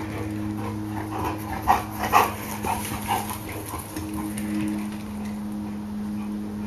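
A dog gives a quick series of short barks and yips about one to three seconds in. A steady low hum runs underneath.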